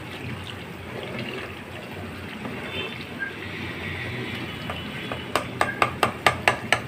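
Butter cooking down into desi ghee in a pot: a steady bubbling sizzle as the separated milk solids (khoya) fry in the ghee on their way to golden, while a slotted spoon stirs. Near the end comes a quick run of about seven sharp clicks.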